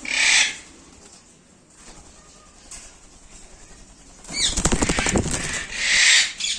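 Pet lovebirds flapping their wings: a rapid flutter of wing beats a little past four seconds in, with short loud rushing bursts at the start and near the end.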